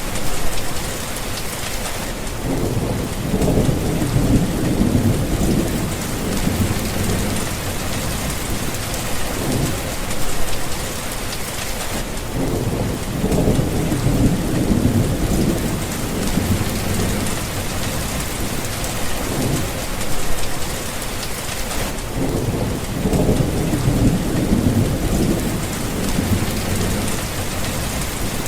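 Rain falling steadily in a thunderstorm, with low rumbles of thunder rolling in three times, about ten seconds apart.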